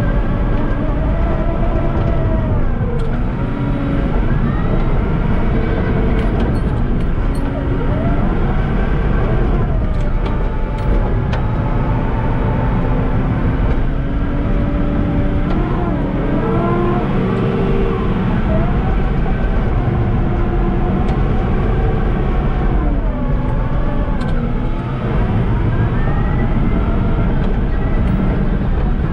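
Caterpillar crawler dozer's diesel engine running hard under load, heard from the cab, its pitch dipping and recovering several times as the blade pushes dirt and stumps. Occasional knocks and clanks sound over the engine.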